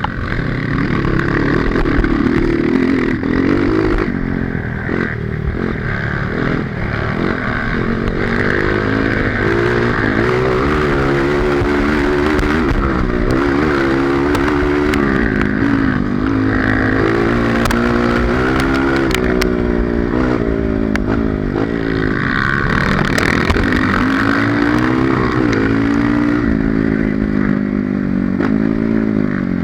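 Honda CRF230 trail bike's single-cylinder four-stroke engine being ridden, its revs rising and falling continuously, with scattered knocks and clatter.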